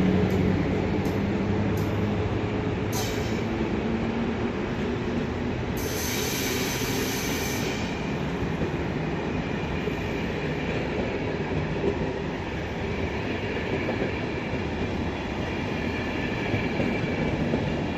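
Electric passenger train rolling slowly through the station, with a brief hiss about six seconds in and a thin wheel squeal afterwards.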